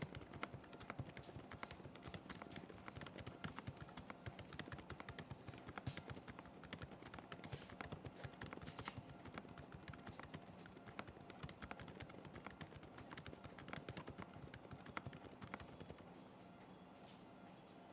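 Typing on a Kzzi K75 mechanical keyboard with TTC PinkGold V3 switches: a fast, continuous stream of key strokes that thins out to just a few strokes about sixteen seconds in.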